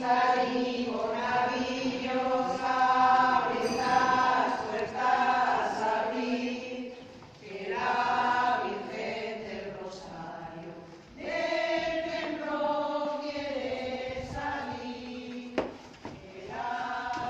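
A group of women singing a hymn to the Virgin Mary together, unaccompanied, in long held notes with short breaks between phrases. A single sharp knock sounds near the end.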